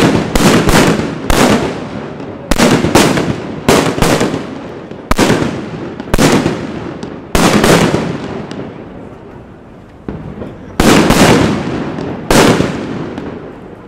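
Firecrackers exploding on the ground one after another, about fifteen sharp bangs at uneven intervals, some close in pairs. Each bang is followed by a long echo that dies away.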